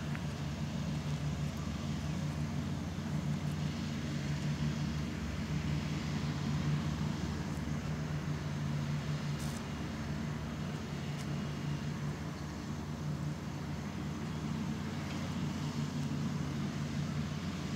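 A vehicle engine idling nearby: a steady, even low hum that does not change.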